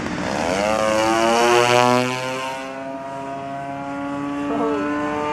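30cc DLE single-cylinder two-stroke petrol engine of a radio-controlled Yak-54 model plane flying past fast. Its pitch falls as it passes, loudest about two seconds in, then it runs steadily at the lower pitch.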